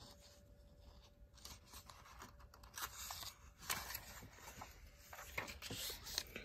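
A page of a paperback book being turned by hand: faint rustling and crinkling of paper, starting about halfway through with a sharper crackle near the middle.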